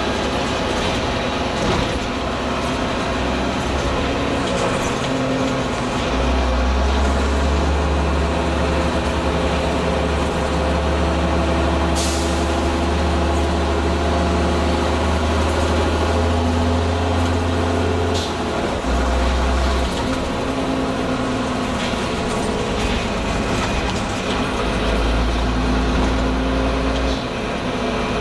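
Leyland Olympian double-deck bus's diesel engine running and pulling under load, its low drone rising and falling through several gear stages. Sharp hisses of air come about twelve and eighteen seconds in, the 'sneezing' of its air-operated gear changes.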